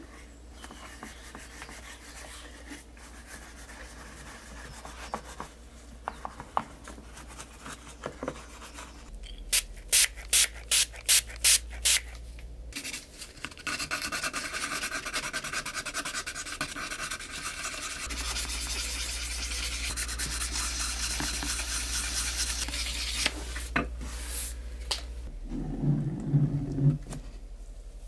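Sandpaper rubbed by hand over the edge of a toy pick-up truck's seat piece. It starts as faint rubbing, then comes about six loud separate strokes, then a long run of steady rapid sanding that stops a few seconds before the end. A few short knocks follow near the end.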